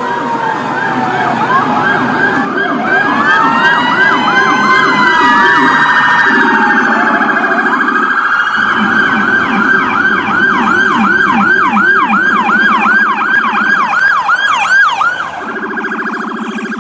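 Several emergency-vehicle sirens sounding together, mixing slow wails with fast yelps. From about eight seconds in, a rapid yelp of about three sweeps a second leads, and near the end the sweeps stop, leaving a steady tone.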